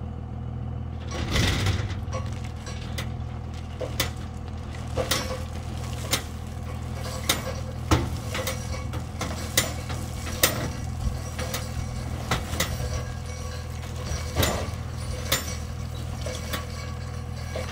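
Dodge 24-valve Cummins inline-six diesel running steadily at low revs while towing a dump trailer with its bed raised. Scattered sharp clicks and crunches of gravel sound over it, with a louder rough crunch about a second in.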